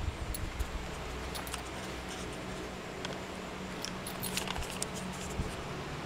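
Light scattered clicks and small rattles from a basset hound puppy nosing and mouthing a small cardboard box on the floor, most in a cluster about four seconds in, over a steady low hum.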